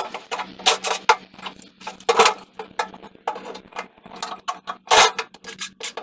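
Metal hardware and wooden panels of a toy wagon clinking and knocking as it is taken apart: a rapid, irregular run of sharp metallic clicks and rattles, with a heavier knock about five seconds in.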